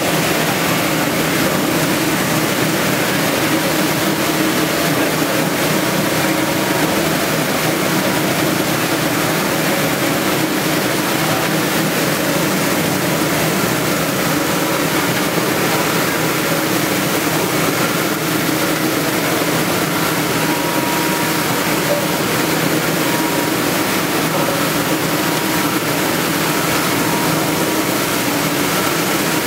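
Ginger washing and peeling machine running: the steady hum of its drive with water spraying and splashing over the turning screw auger.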